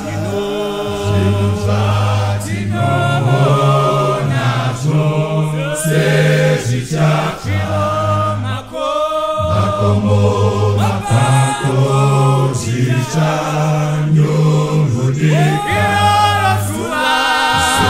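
A vocal group singing a gospel song in Shona in close harmony, over a low bass line held in long steady notes.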